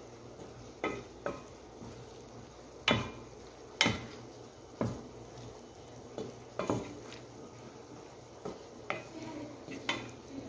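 Wooden spatula stirring diced chicken and bell peppers in a steel pan, knocking and scraping against the metal about ten times at irregular intervals, the loudest knocks about three and four seconds in.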